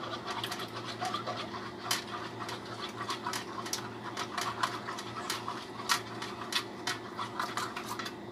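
Fork beating raw eggs in a ceramic plate: quick, irregular taps and scrapes of the fork against the plate, several a second, over a steady low hum.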